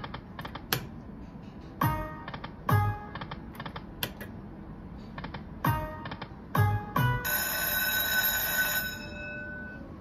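Dragon Link Golden Century poker machine spinning twice: clicks, then electronic chimes with low thuds as the reels stop, two at a time. About seven seconds in, a held ringing jingle sounds as fireball symbols land, the sign of the Hold & Spin bonus triggering.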